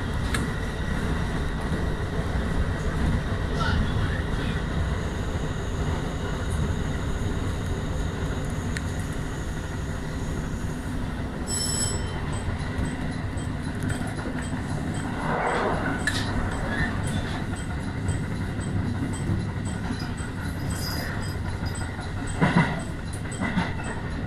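Electric passenger train running on the JR Yosan Line, heard from inside at the front of the car: a steady rumble of wheels on rail, with a few clicks over joints and points near the end. About halfway in, a level crossing's warning bell starts ringing at about two strikes a second.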